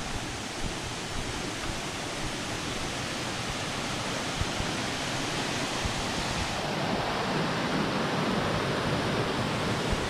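Rushing forest stream running over rocks in small rapids: a steady, even roar of water that grows slightly louder.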